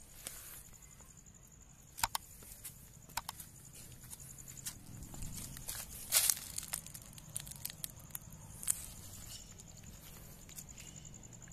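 Faint footsteps and rustling handling noise, with a few sharp clicks, over a steady high chirring of crickets.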